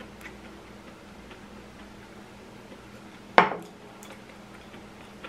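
Faint clicks of wooden chopsticks against a ceramic bowl during eating, with one loud, sudden sound about three and a half seconds in that fades quickly.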